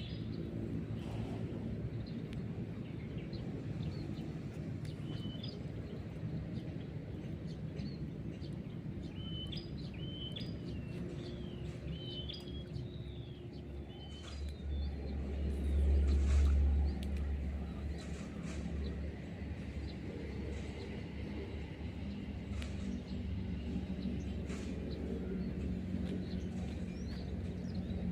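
Outdoor pond-side ambience: a steady low rumble that swells louder for a couple of seconds around the middle, with birds chirping in short, quick repeated calls for a few seconds before it.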